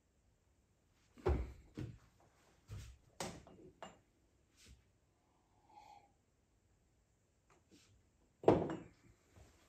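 Handling noise from someone moving about at a desk: a series of scattered knocks and thumps, the loudest about eight and a half seconds in.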